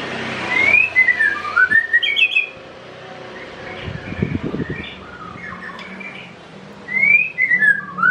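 White-rumped shama of the Medan type singing: two phrases of clear whistles, each a rising note followed by a string of falling notes, one at the start and one near the end.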